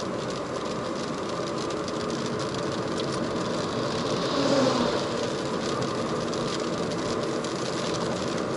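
Inside a Ford Focus II driving on a wet road: steady tyre and road noise with the engine running. About four and a half seconds in, an oncoming truck passes, its sound swelling and then dropping in pitch.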